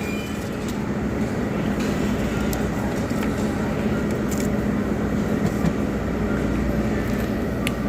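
Steady background din of a busy buffet restaurant with a constant low hum, broken by a few light clicks and clinks, several seconds apart, from serving utensils and dishes.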